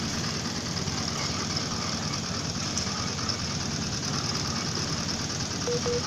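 An engine running steadily with a rapid, rough beat, with no separate hammer blows standing out. A few short beeps sound right at the end.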